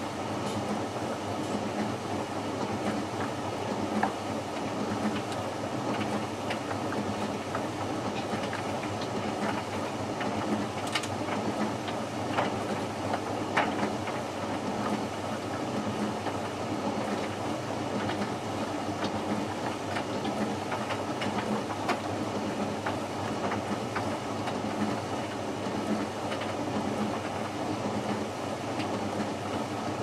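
Hoover VisionHD condenser tumble dryer running a bone dry cycle. Its motor and fan run steadily under a faint rhythmic rumble as the drum turns the laundry, with scattered light clicks.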